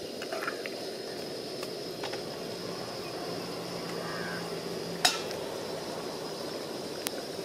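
Metal spoon stirring thick curry in a non-stick kadai, scraping through the sauce, with a sharp clink of the spoon against the pan about five seconds in and a lighter one near the end. Under it runs the steady rush of the portable gas stove's burner.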